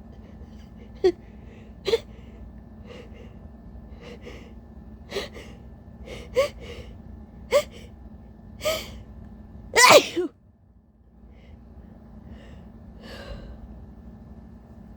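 A woman's tissue-induced sneeze: a breathy buildup of sharp gasping inhalations, about one a second and growing louder, ending in one loud uncovered sneeze about ten seconds in, followed by a few softer breaths.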